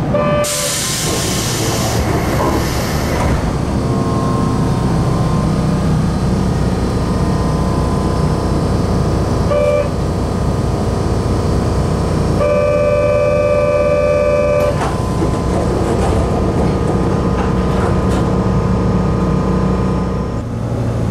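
Kobe Electric Railway 1350 series train doors working at a station: a burst of air hiss as the pneumatic doors open, an electronic buzzer sounding briefly near ten seconds and again for about two seconds around thirteen to fifteen seconds, and the doors shutting with a knock, all over the steady hum of the car's equipment.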